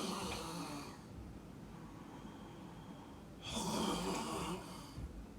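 A person snoring: two long snores, one at the start and another about three and a half seconds in.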